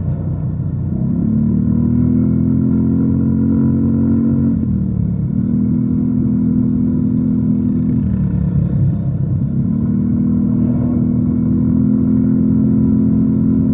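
Yamaha NMAX 155 scooter's single-cylinder four-stroke engine, breathing through a DS4 aftermarket muffler, running at steady cruising revs. Its pitch dips briefly and climbs back twice, about five and nine seconds in, as the throttle is eased off and reopened.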